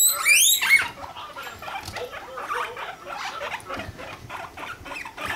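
Guinea pigs calling during mating: a loud, high-pitched squeal with quick rising sweeps in the first second as the boar mounts the sow, then a fast, quieter run of short calls.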